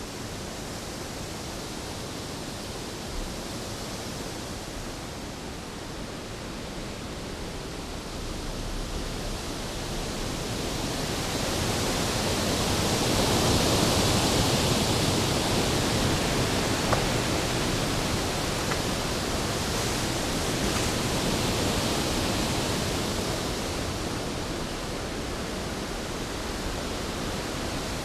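Storm sound effect: a steady rushing of wind and rain that swells to its loudest about halfway through, then slowly eases off.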